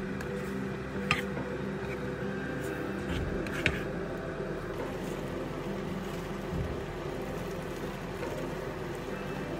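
A spatula stirring a thick cream sauce in a frying pan, knocking sharply against the pan twice, about a second in and again near four seconds. A steady low hum runs underneath.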